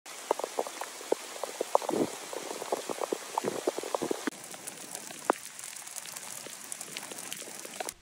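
Rain in a wet forest: individual raindrops hitting irregularly over a steady hiss of rainfall. The drops are dense at first and thin out about halfway through.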